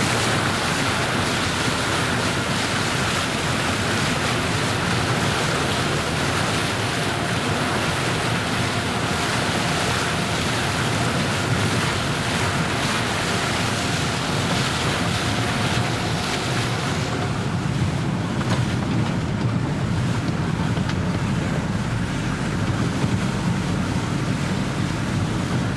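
Steady, continuous rush of floodwater, an even noise whose hiss thins out about two-thirds of the way through.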